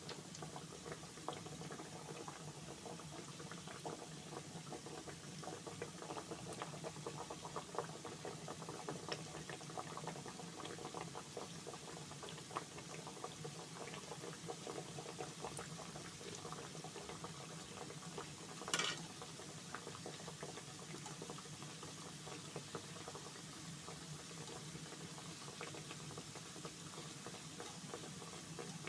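Mandazi dough deep-frying in hot oil: a steady, faint bubbling with many small crackles, and one brief louder sound about two-thirds of the way through.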